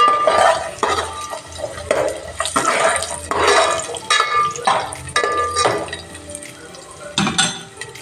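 Metal spoon stirring and scraping dry fruits (almonds, cashews, pistachios, raisins) frying in a little oil in a metal pot. It makes a series of irregular scrapes and clinks, roughly one or two a second, some with a short metallic ring, thinning out after about six seconds.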